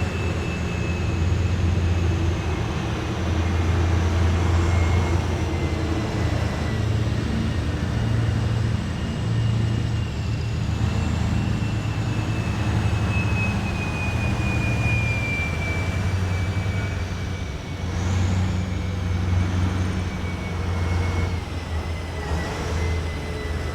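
Heavy military vehicles passing in a column, with a deep engine rumble and a steady high whine that slowly falls in pitch.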